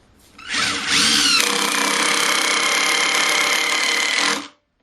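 Older Porter-Cable 18-volt cordless impact driver driving a large bolt with a socket. It spins up about half a second in, runs hard and steady for about three and a half seconds, and stops suddenly.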